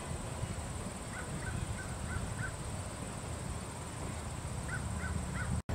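Outdoor ambience: a steady low rumble with a few short bird chirps, in a cluster about a second in and another near the end.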